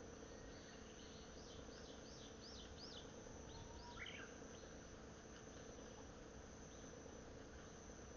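Faint higurashi (evening cicada) calling: a quick run of about half a dozen high, rising-and-falling notes that dies away after a few seconds.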